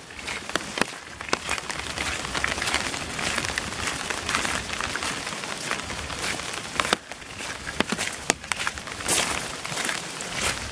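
Heavy rain falling steadily, with scattered sharp taps of drops and footsteps mixed in.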